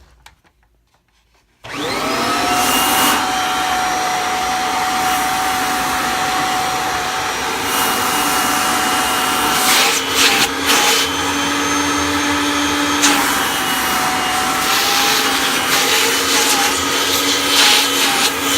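1993 Kirby G4 upright vacuum cleaner switched on: the motor starts about a second and a half in and quickly spins up to a steady high whine with rushing air. Around ten seconds in, and again a few times later, its pitch dips and wavers briefly with bursts of louder air noise.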